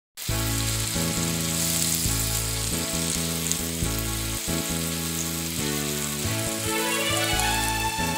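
Beef steaks sizzling as they fry in a pan, under background music of held chords that change every second or so. The sizzle is clearest in the first half; a rising run of notes comes in near the end.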